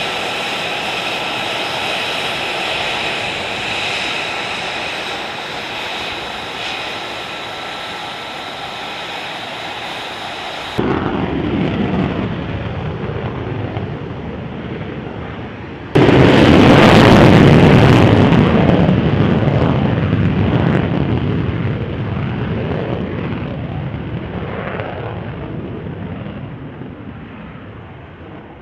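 F-35C Lightning II jet engines: a steady high-pitched turbine whine at ground power, then a deeper rumble, and about 16 seconds in a sudden loud takeoff roar that slowly fades away as the jet climbs out.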